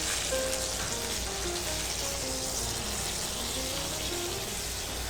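Food sizzling in a hot pan: a steady frying hiss, with a simple background-music melody of short held notes over it.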